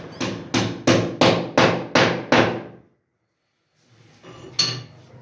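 Hammer blows on a wooden cupboard frame: seven quick strikes at about three a second, then after a short break a single knock near the end.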